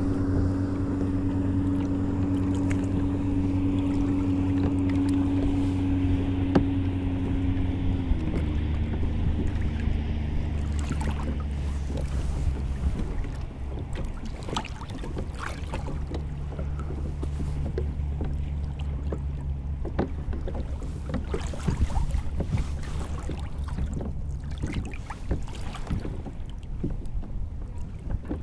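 A motorboat engine running steadily, its pitch dropping about eight seconds in as it throttles down, then fading out after about twenty seconds. Light knocks come through over the later part.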